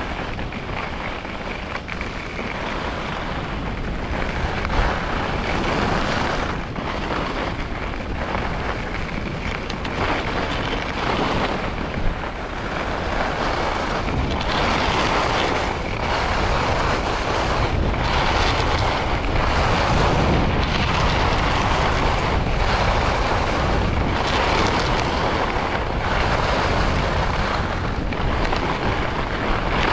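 Wind rushing over the camera microphone while skiing downhill, mixed with skis scraping over groomed packed-powder corduroy. In the second half the noise swells and fades about every second or two with the skier's turns.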